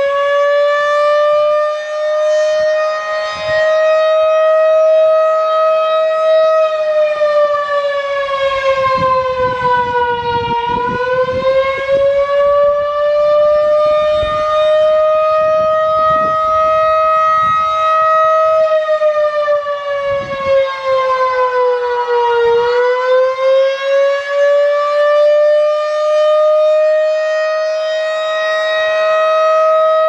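Federal Signal 2001-DC rotating electromechanical siren sounding the attack signal: one steady, loud siren tone that slowly rises and falls in pitch, dipping twice, at about ten and twenty-two seconds in. Its loudness swells and fades as the rotating horn turns toward and away.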